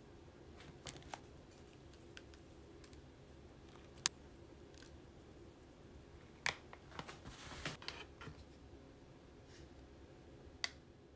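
Light, sharp clicks and taps from hands working over a plastic bento box. A little past the middle comes a brief patter of sesame seeds being sprinkled by hand over the chicken pieces.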